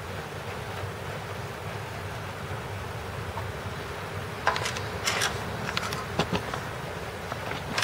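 A steady low hum runs throughout. From about four and a half seconds in, several short clicks and knocks are heard, the sound of things being handled on a hard floor.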